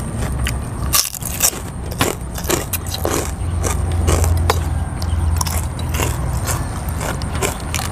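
Eating sounds: metal spoons and forks clicking against glass bowls, with chewing and noodles being sucked up. Sharp clicks come throughout over a steady low hum.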